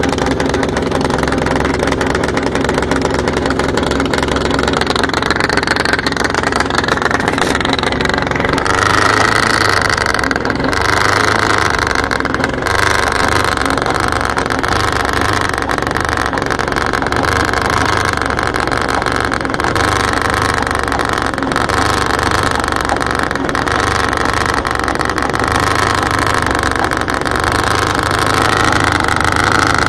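Big cold diesel engine running through a tall upright exhaust stack, warming up after a cold start. Its speed rises about five to nine seconds in, then holds steady at a higher pitch, dipping slightly later and picking up again near the end.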